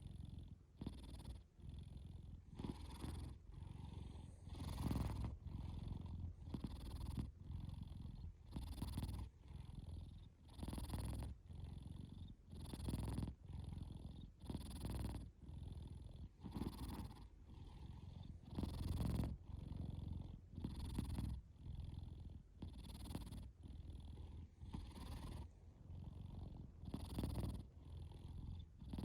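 A sleeping cat snoring at close range: a rasping noise on each breath, repeating evenly at about one breath every two seconds.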